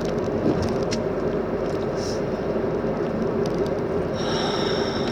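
Steady low rumble of vehicle road and engine noise, with a faint high tone coming in about four seconds in.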